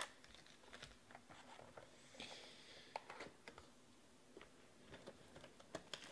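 Faint handling of trading-card packs and a cardboard card box: a few light taps and clicks, with a brief soft rustle a little after two seconds in.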